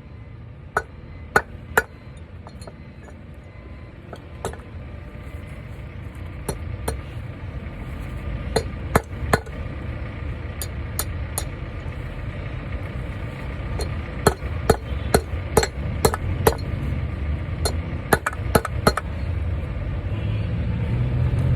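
Hammer striking a cable terminal eye to crimp it onto a battery ground cable: sharp metallic taps at an irregular pace, some in quick runs of three or four.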